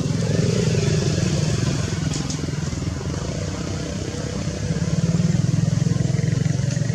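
Motorcycle engine idling steadily close by, getting a little louder near the end.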